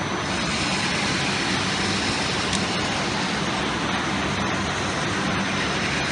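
Axle journal turning and burnishing (AJTB) machine running steadily, turning a railway wagon wheelset while burnishing rollers work the axle journal. A dense, even machine noise with a steady low hum.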